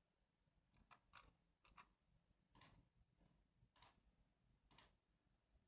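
Near silence: room tone with faint short clicks, roughly one a second.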